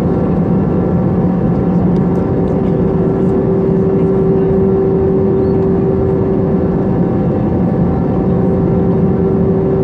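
Cabin noise of an Airbus A321 in cruise, heard from a window seat over the wing: a steady drone of the jet engines and rushing air, with a steady hum tone running through it.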